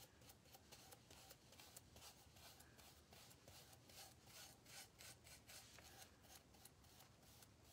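Faint, scratchy strokes of a flat paintbrush working a thin coat of paint onto a wooden panel, many quick strokes in a row.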